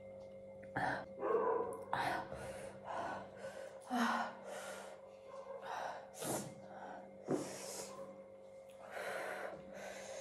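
A woman's heavy, gasping breathing: a string of short, hissing breaths in and out through an open mouth, uneven in spacing.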